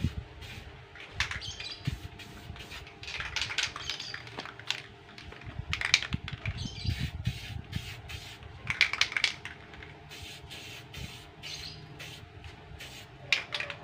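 Aerosol spray-paint can hissing in repeated short bursts a second or two apart as paint is sprayed onto a paper-covered lion-dance head.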